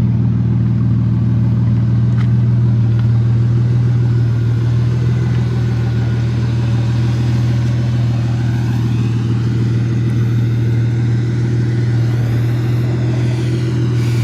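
Car engine running at a steady speed, a constant low drone that holds its pitch throughout.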